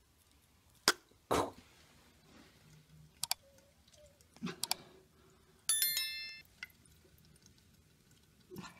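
A few sharp clicks and short noises, then a brief bright electronic chime about six seconds in: the mouse-click and notification-bell sound effects of a subscribe-button overlay.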